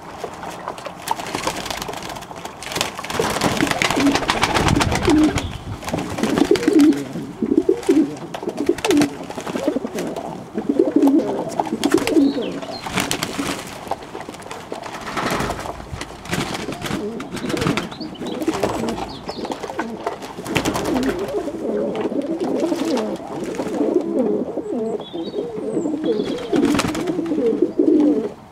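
Domestic pigeons cooing over and over in low, warbling phrases, with frequent short clicks and knocks mixed in.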